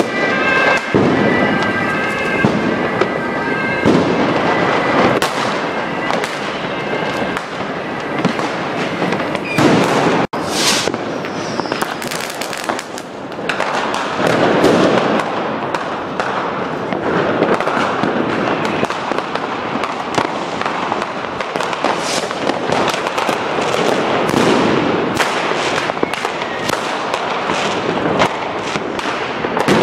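Dense New Year's Eve fireworks and firecrackers going off all around in the street: a continuous barrage of bangs and crackling, with a brief high whistle about ten seconds in.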